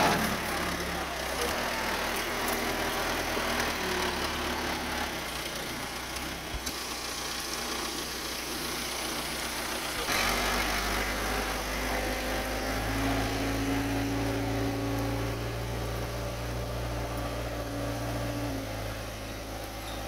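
Case 580E backhoe loader's four-cylinder diesel engine running as the machine drives across the yard. The engine note holds steady, then turns louder and lower about halfway through.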